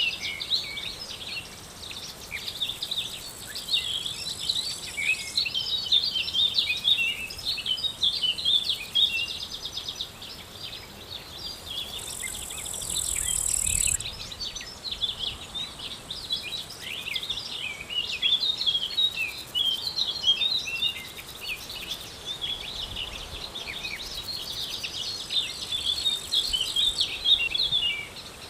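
Many small birds chirping and twittering in a dense chorus. An insect buzzes high and steady over it, stopping and starting in stretches of a few seconds, loudest about halfway through.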